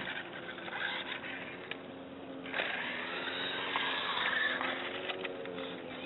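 Toy RC car's electric drive motor and gears whirring as it drives and turns across pavement, with small clicks and tyre scrapes; the whirring gets louder about two and a half seconds in.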